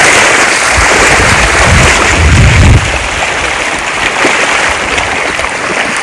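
Rushing water of a waterfall, a loud steady hiss, with a low rumble for about a second near the middle; the sound gets a little quieter just before three seconds in.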